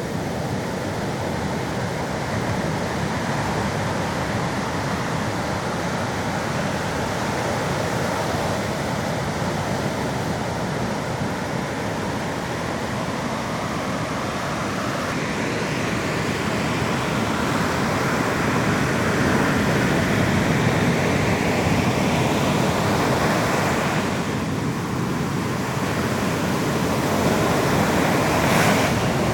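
Sea waves breaking and washing on the shore: a steady rushing noise that swells a little from about halfway through.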